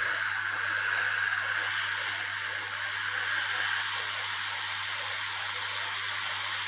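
Hot-air rework station blowing a steady hiss of hot air over the motherboard, with a steady low hum underneath, while a burnt surface-mount component is heated so it can be desoldered and replaced.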